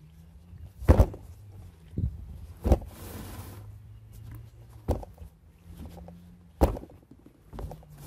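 Lawn mower tire and wheel being turned over and set down by hand on a wooden tabletop, giving about half a dozen dull thumps at uneven intervals. The tire is being rolled to spread the sealant inside it.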